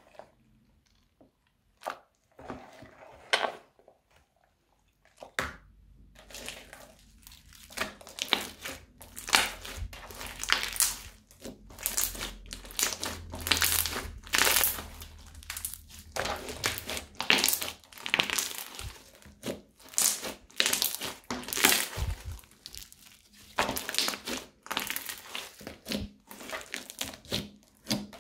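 Crunchy slime with small coloured beads mixed through it, crackling and crunching as hands squeeze, fold and knead it. It comes in a few separate bursts over the first five seconds, then goes on almost without a break.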